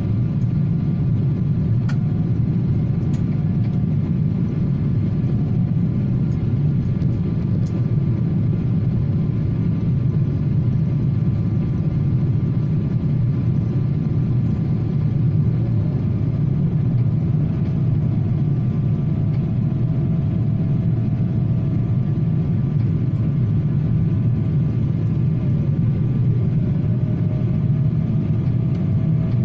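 Steady low mechanical rumble with a faint steady whine above it. One thin tone shifts slightly in pitch about halfway through.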